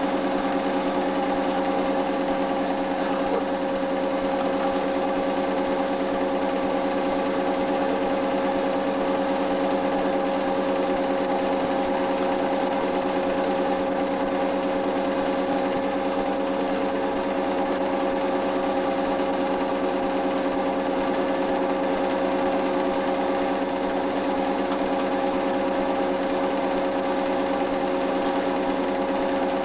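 8mm film projector running steadily: a constant mechanical whir with several fixed hum tones, picked up while the silent home movie was projected for transfer.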